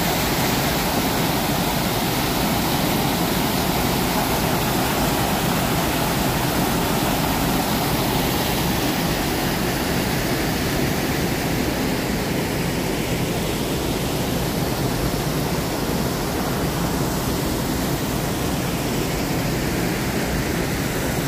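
Water pouring over a concrete weir and splashing into the pool below: a steady, unbroken rush of falling water.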